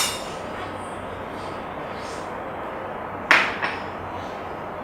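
Wok heating on the stove with a little peanut oil: a steady rushing noise, with a sharp metallic clink about three seconds in and a lighter one just after.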